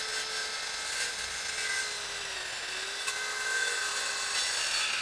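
Handheld electric circular saw cutting through a 2 cm wooden plank: a steady sawing hiss over the motor's whine, which sags slightly in pitch around the middle as the blade works through the board.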